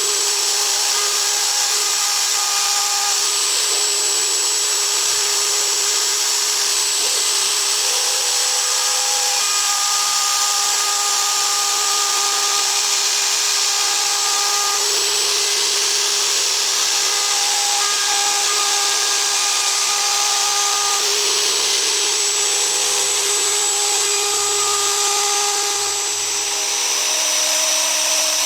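ASIMA AR 1200 CNC router's spindle running steadily as it cuts a die-board base, with a hiss of cutting and several whining tones from the axis drives that switch on and off every few seconds as the head changes direction.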